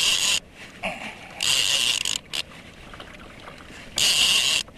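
Fishing reel drag ratcheting as a hooked yellowtail pulls line off in short runs. There are three bursts: one that ends just after the start, one about a second and a half in, and one near the end.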